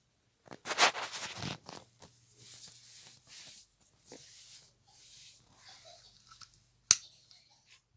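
Rustling and shuffling of a person getting up and moving about, loudest for the first second or so, then softer swishing sounds, and a single sharp click near the end.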